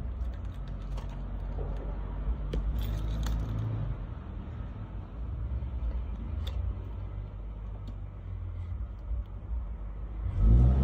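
A steady low hum, with light metallic jingles and clicks now and then, like a key ring clipped to a belt shaking as someone moves. A louder low hum swells up near the end.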